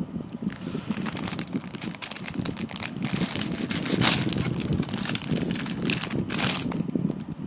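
Plastic mooncake wrapper crinkling and crackling as it is cut and torn open with a knife, with louder rustles about four and six seconds in.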